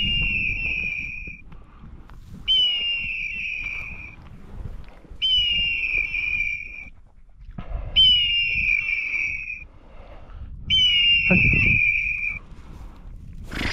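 A shrill whistle signal sounds five times, about every two and a half to three seconds, each blast opening with a quick upward flick and then holding one pitch for about a second, over a low rumble.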